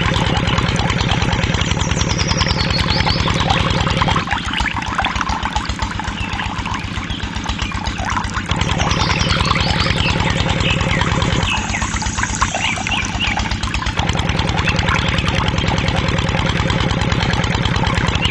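An engine running with a rapid, even firing beat. Twice it drops quieter for a few seconds, about four seconds in and again near twelve seconds, then comes back up.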